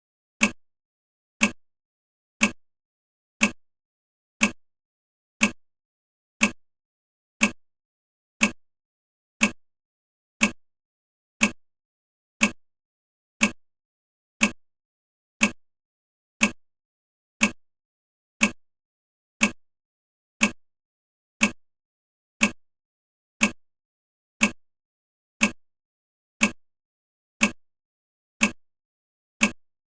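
Countdown timer's clock ticking: sharp, even ticks, one a second.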